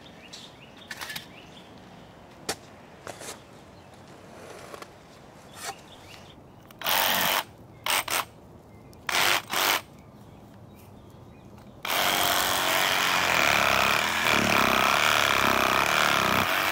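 Cordless reciprocating saw started in several short bursts, then held running for about five seconds with its blade in the soil of a trench. A few faint scrapes and knocks come before it.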